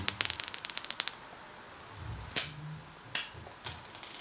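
Thin plastic protective film being peeled off an iPhone 11, crackling in a fast run of sharp clicks that thins out about a second in. Two louder crackles follow, then a few more clicks near the end.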